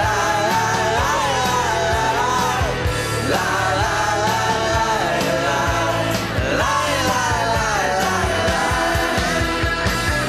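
Rock music with a steady beat and a pitched lead line gliding up and down, with no sung words.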